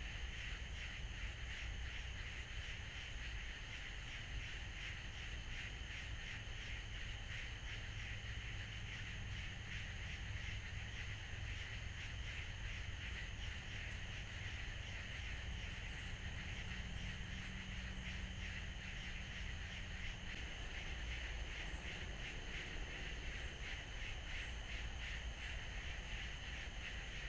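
Steady outdoor animal chorus: a fast, even, high-pitched pulsing that runs without a break, over a low rumble.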